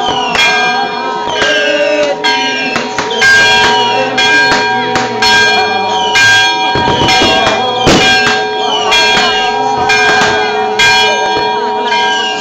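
Church bells ringing fast and without a break, struck about twice a second with the ring held between strikes: the festive ringing that announces the Orthodox Easter Resurrection.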